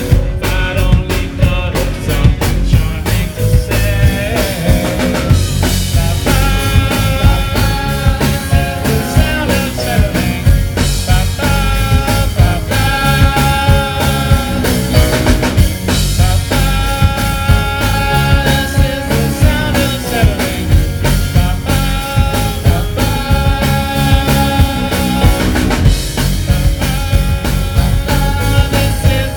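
A rock band playing live: drums keep a steady beat under guitar and sustained pitched notes.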